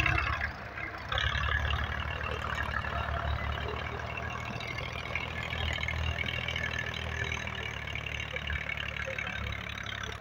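Massey Ferguson 240's three-cylinder diesel engine running steadily under load as the tractor pushes loose soil with its front blade, with a grainy clatter over the low rumble. It gets louder about a second in.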